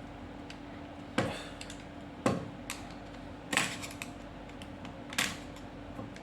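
Sharp metallic clacks of small door-lock parts being handled and fitted, four times about a second apart, over a steady hum.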